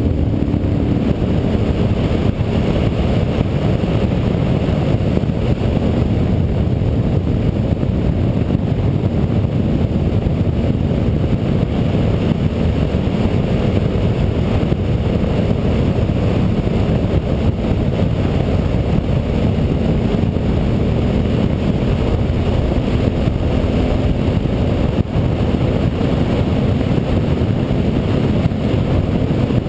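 Steady wind rush on the microphone over the even drone of a Honda Varadero 1000's carburetted V-twin as the motorcycle cruises at road speed.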